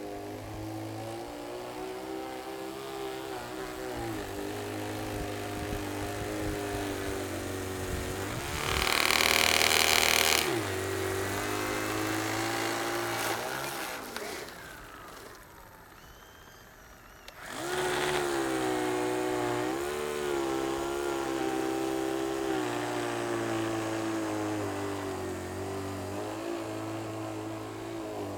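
Prototype single-stage R/C snow blower running and throwing snow, its motor note rising and falling as it works. About nine seconds in a louder rushing burst lasts a second or so, and about fourteen seconds in the sound drops away for a few seconds before coming back.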